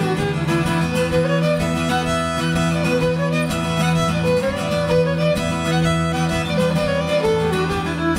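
Fiddle and acoustic guitar playing a contra dance tune together: the fiddle carries the melody over steady guitar accompaniment.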